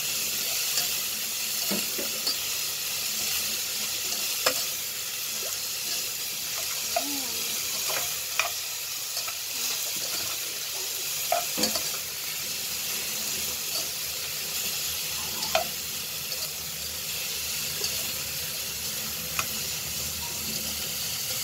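Beef frying in oil in a non-stick pan, sizzling steadily while a metal spatula stirs it, with a few scattered clicks and scrapes of the spatula against the pan.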